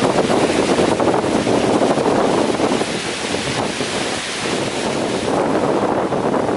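Strong gusting wind with heavy rain, the wind buffeting the microphone in a loud, uneven rush.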